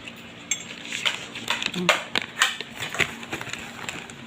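Bulldog puppy's claws clicking and tapping irregularly on a hard floor as it comes when called, with a brief low vocal sound near the middle.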